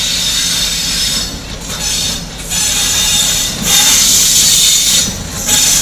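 Diesel locomotive drawing a passenger train slowly into a station, its engine running low beneath a loud high hiss that drops out briefly several times.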